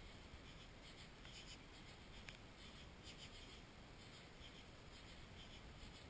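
Near silence: a faint, muffled hiss picked up through a camera's sealed waterproof case, with one faint click a little past two seconds in.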